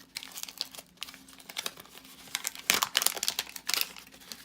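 Wax-paper wrapper of a 1984 Topps football card pack crinkling and crackling as it is handled and opened, in quick irregular crackles, louder a little under three seconds in.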